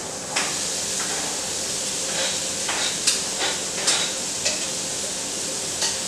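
Shrimp, bell pepper and onion sautéing in butter in a frying pan, with a steady sizzle. A utensil clacks and scrapes against the pan about eight times as the mixture is stirred.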